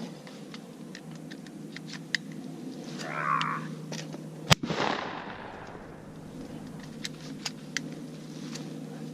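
A single shotgun blast from a Benelli semi-automatic 12-gauge, about four and a half seconds in, fired at a thrown clay target, followed by a long rolling echo.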